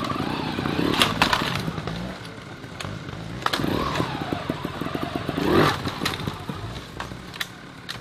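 Trials motorcycle engine running with short rising revs as the bike is hopped up a rock step, with several sharp knocks of the bike against the rock.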